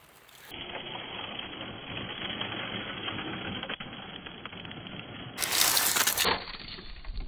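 Brushless RC truck driving and drifting on loose gravel: a steady rattle of tyres crunching and stones spraying. A short, much louder rush comes about five and a half seconds in as it passes close.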